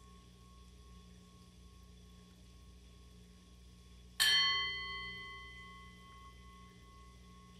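Small handheld singing bowl, already ringing faintly, struck once about four seconds in: a clear ring of several high tones that fades away over about two seconds, leaving a faint lingering hum of the bowl.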